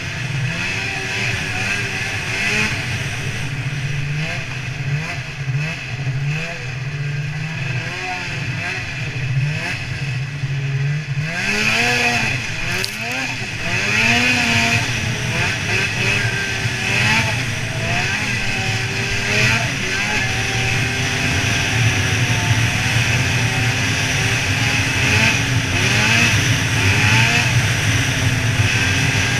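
Snowmobile engine running at speed, its pitch wavering up and down as the throttle and load change, over a steady hiss. About twelve seconds in it sweeps up in pitch and gets louder as it speeds up, then holds high.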